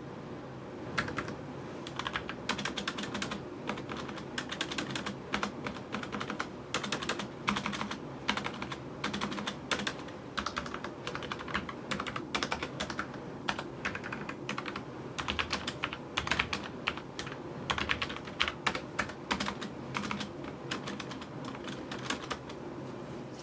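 Typing on a Logitech MX Mechanical Mini mechanical keyboard: quick runs of key clicks with short pauses between them, starting about a second in.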